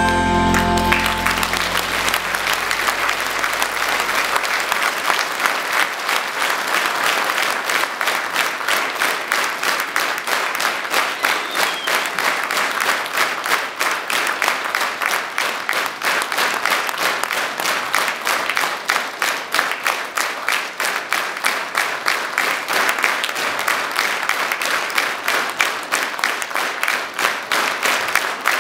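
Concert hall audience applauding as the last chord of the song dies away, the applause settling within a few seconds into steady rhythmic clapping in unison, the call for an encore.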